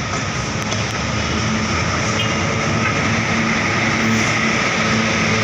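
Heavy road traffic passing close: a steady rush of tyres and engines, with the low, steady drone of a heavy vehicle's engine that grows a little louder through the second half.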